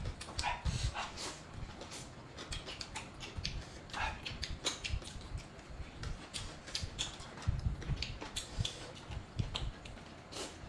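Two people eating crab and noodles close to the microphone: chewing and mouth sounds, with scattered light clicks and taps of chopsticks and crab shell.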